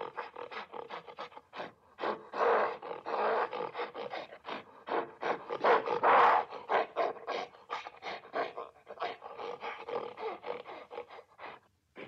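Gorilla calling: a rapid run of short, harsh grunts and pants, with a few longer, louder roaring calls mixed in. The calls thin out near the end.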